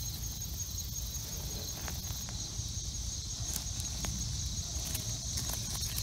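Steady high-pitched chirring of insects, with a few faint clicks and rustles of hands sifting through loose potting soil.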